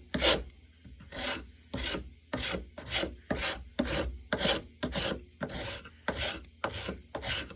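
Freshly sharpened spokeshave drawn repeatedly across a piece of pine, its blade taking fine shavings in quick rasping strokes, about two a second.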